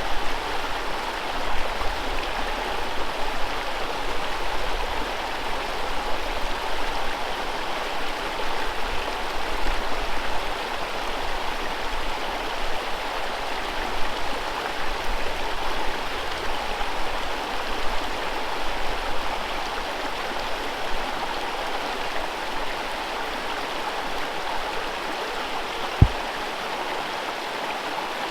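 Whitewater rapids on a river: water rushing steadily without a break. One short low thump stands out near the end.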